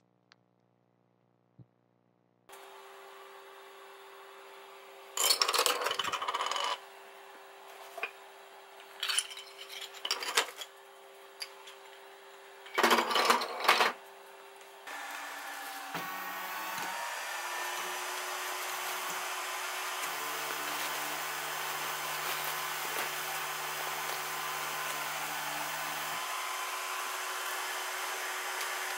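Delta 3D printer: a steady machine hum with three short bursts of clattering in the first half. Then, at the start of a print, fans and stepper motors run with a steady whir and whine, and the pitch shifts briefly as the motors move.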